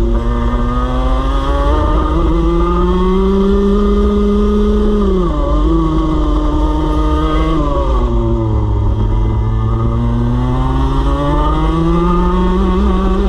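Racing kart's small two-stroke engine heard from on board, running at high revs under racing load: the pitch climbs slowly, drops sharply twice as the throttle is lifted for corners, about five seconds in and again about two seconds later, then climbs again as the kart accelerates out.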